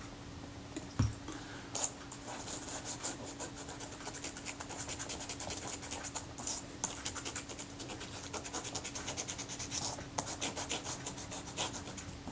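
Cotton swab wet with naphtha rubbing the back of a piece of leatherette camera covering on a plastic cutting board: a fast run of short scratchy strokes, cleaning the backing so the adhesive will stick. A single knock sounds about a second in.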